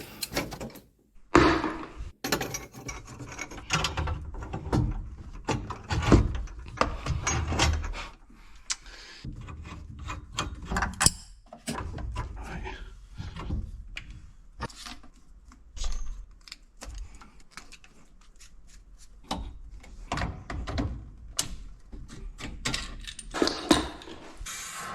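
Irregular knocks, clinks and scrapes of hand tools and metal fittings being worked while a central heating pump and its isolating valves are changed.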